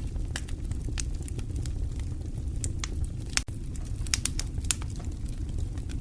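Wood fire burning in a fireplace: irregular sharp crackles and pops over a steady low rush of flame.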